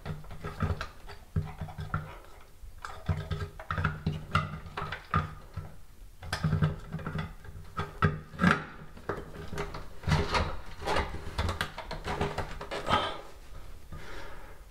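Plastic ceiling rose cover being twisted back onto its base by hand: a run of small irregular clicks, taps and scrapes of plastic on plastic as it is worked into place, a fitting that needs a knack to go back on.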